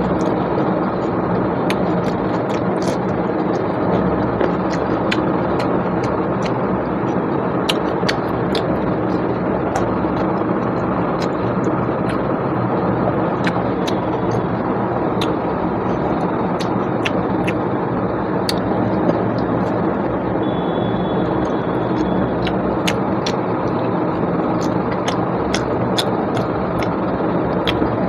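Steady rushing background noise throughout, with many short sharp clicks and smacks scattered over it: the sounds of eating mutton and rice by hand.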